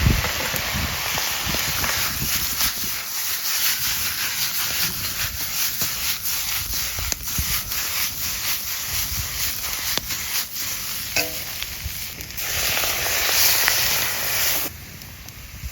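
Cooking over a wood fire: a steady sizzling hiss broken by many sharp crackles. It grows louder for a couple of seconds near the end, then drops off suddenly.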